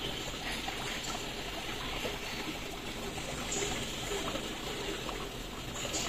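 Water trickling and splashing steadily, with many small drips and plops.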